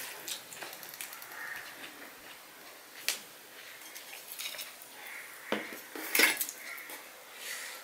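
Stainless steel bowls clinking and knocking on the table as a bowl of curry is moved, the loudest clinks about six seconds in, with sharp taps a little after three and five seconds in. Softer squelching of fingers mixing rice on a steel plate runs underneath.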